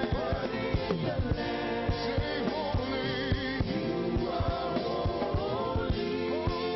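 Gospel praise-and-worship song played live by a band with a steady drum beat, with a singer's voice wavering over held chords.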